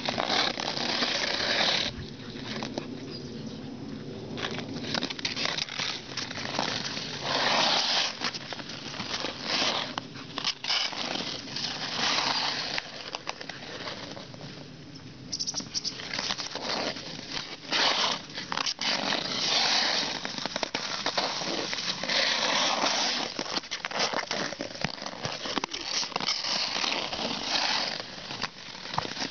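Ice skate blades scraping and hissing across pond ice in repeated strokes that swell and fade, with a few sharp clacks of a hockey stick striking a ball.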